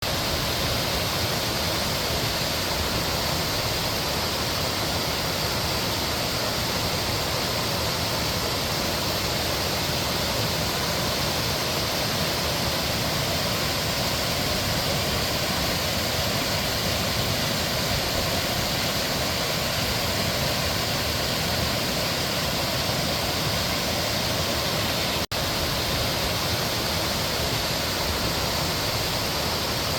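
Mountain stream flowing steadily, an even rush of water with a split-second dropout about twenty-five seconds in.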